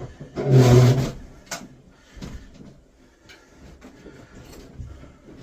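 A heavy metal HVAC unit being shoved into its opening: one loud scraping drag about half a second in, then scattered knocks and bumps as it settles.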